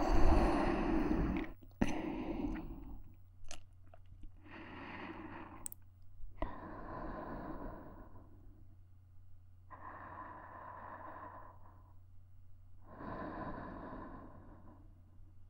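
Slow, soft breathing right at a KU100 dummy-head microphone: four long breaths a few seconds apart. A louder burst of close-up noise comes first.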